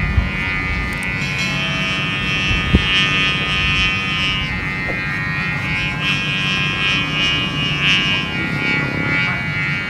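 Buzzing drone of a sumba kite's guri, its bowed hummer vibrating in the wind high overhead: a dense, many-toned buzz that swells and fades without a break.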